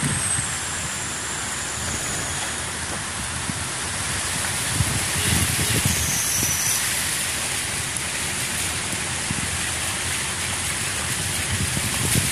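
A steady hiss of heavy rain and floodwater churning around the wheels of cars wading through a flooded road, over the low rumble of a car driving slowly.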